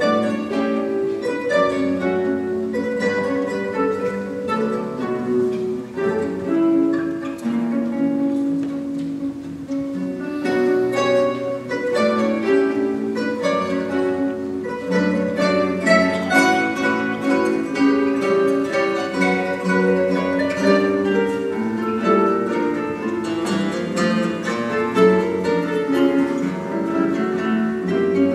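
Classical guitar orchestra: many nylon-string classical guitars playing an orchestral piece together, with dense, overlapping plucked notes.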